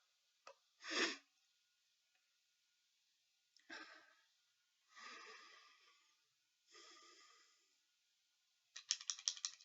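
Empty desk stapler clacking shut as it is squeezed, firing no staple: one sharp clack about a second in, a few soft noisy sounds in the middle, and near the end a fast run of sharp clicks as it is squeezed again and again.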